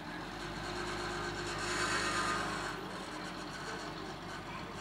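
Mercedes-Benz W123 sedan driving off at low speed with its engine running steadily. The car's noise swells to a peak about two seconds in, then eases as it moves away.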